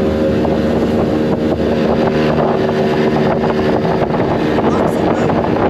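Warrior motorboat's engine running steadily at speed, its even drone over a rush of water and wind.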